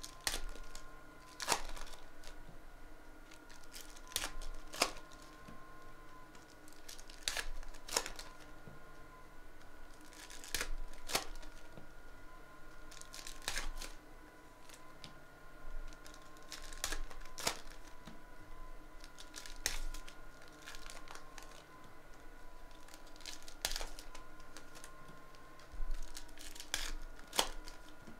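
Foil wrappers of basketball trading-card packs being torn open and crinkled, one after another in short, irregular rips, with a faint steady hum underneath.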